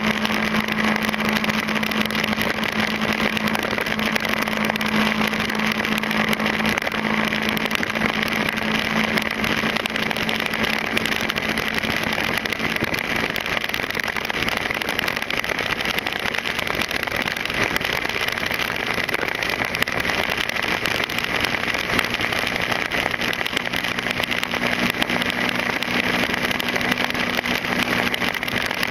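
Motorcycle engine running at a steady cruising speed, its note holding even, over a constant rush of wind and road noise.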